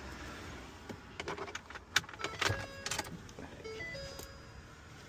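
Several sharp clicks and taps of handling, then a run of short electronic tones stepping between different pitches, like a little beeping tune.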